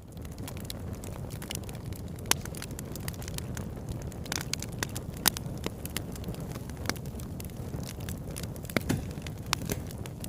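Campfire burning: a steady low rumble of flames with frequent sharp crackles and pops from the burning wood. It fades in at the start.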